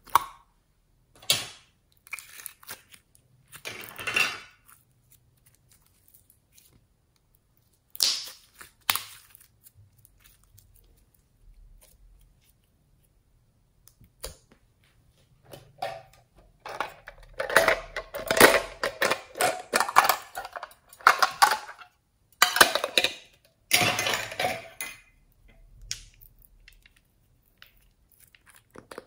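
Glossy slime being pressed and squeezed by hand, giving dense wet crackling and popping over several seconds past the middle. Earlier, a few sharp plastic clicks from handling a plastic makeup compact.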